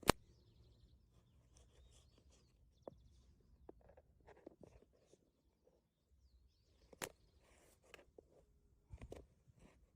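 Faint outdoor ambience with scattered light knocks and clicks. The sharpest click comes right at the start and another about seven seconds in.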